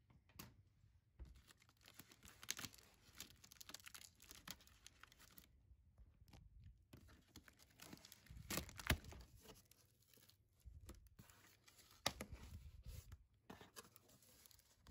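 Packing tape being torn off a cardboard shipping box and its flaps pulled open: faint, irregular tearing and scratchy cardboard rustling with a few louder rips.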